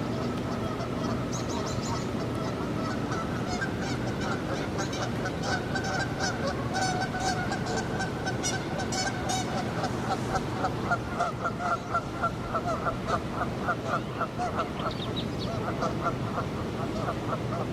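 Geese honking repeatedly, the calls growing into a rapid run about halfway through, over a steady low background rumble.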